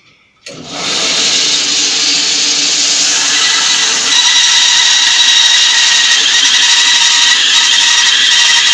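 Bandsaw cutting through a firewood log to saw a flat side off it. The sound comes in suddenly about half a second in and then holds steady and loud, a dense noise with several held tones in it.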